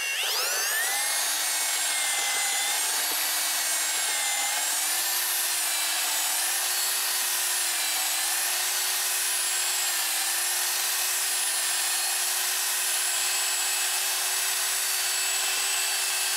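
Electric drill with a paddle mixer spinning up, then running steadily while stirring concrete in a bucket. The motor's whine rises in the first second, then holds, wavering slightly as the mix loads the paddle.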